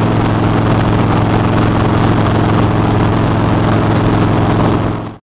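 A vehicle running at highway speed, heard from inside behind the glass: a steady low engine hum under a thick wash of wind and road noise. It cuts off suddenly just before the end.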